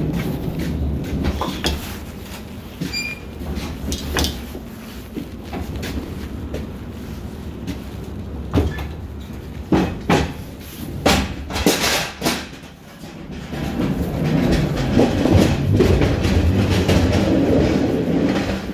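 Low rumble with a series of sharp metallic clanks and knocks from a box truck's cargo box as freight is loaded. The knocks bunch up around the middle, and the rumble swells again near the end.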